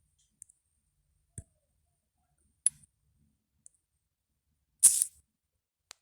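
Sparse faint clicks and taps of a smartphone being handled and tapped, with one louder brief scuff about five seconds in.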